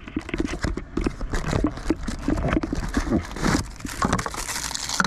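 Handling of delivery packaging: a cardboard box and plastic mailer bags being moved about, with irregular knocks and clicks, and a spell of crinkling plastic near the end.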